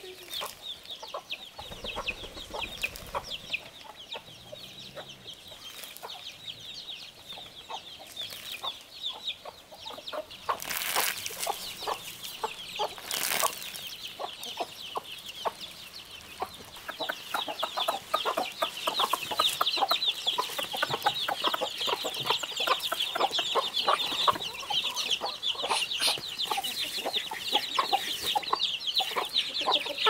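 Chickens clucking and cheeping, a dense chorus of short high calls that grows louder a little past halfway. Two brief rustling noises come about a third of the way in.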